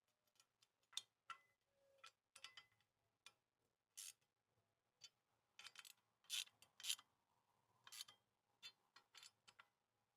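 Near silence broken by faint, scattered clicks and taps of small plastic and metal parts being handled while fitting a plate light to a motorcycle tail tidy, a little louder about four, six and a half, and eight seconds in.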